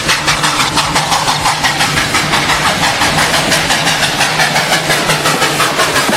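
Engine running at a steady idle, chugging in an even pulse of about five beats a second; it starts and stops abruptly.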